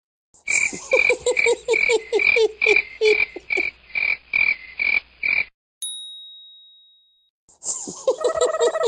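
Rapid, evenly repeating croaking, about two and a half pulses a second, that cuts off suddenly about five and a half seconds in. A single bell-like ding follows, and the croaking starts again near the end.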